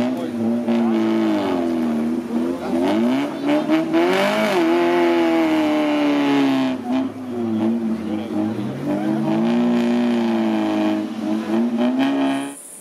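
Suzuki Samurai 4x4's engine revving hard, its pitch rising and falling again and again as it claws up a steep muddy slope with the wheels spinning in the mud. The sound drops away sharply near the end.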